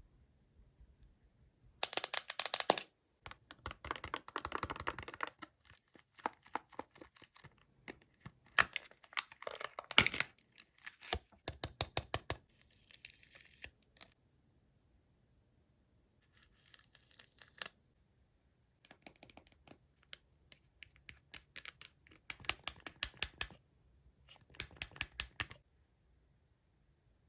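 Close-miked ASMR handling sounds on a melon: rapid scratching, tapping and crinkling in several short bouts separated by quiet pauses.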